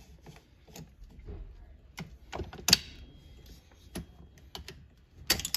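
Scattered small metallic clicks and light scrapes of hands working an AR-style rifle's action and handguard, with one sharper click a little before the middle.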